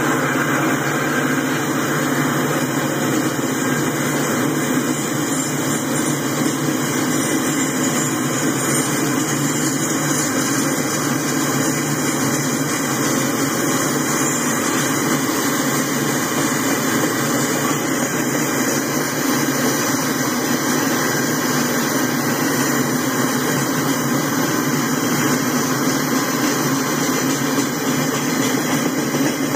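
Freight train's boxcars and tank cars rolling past: the steady noise of steel wheels running on the rails.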